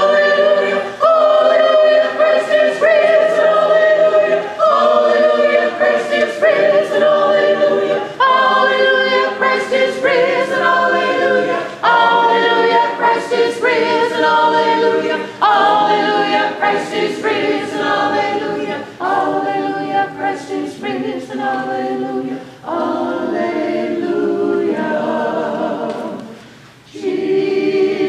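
Church choir singing in a series of held phrases with short breaks between them, dropping out briefly near the end.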